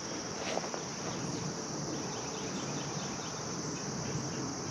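A steady, high-pitched insect chorus, such as crickets trilling, with a run of faint short chirps repeating in the second half.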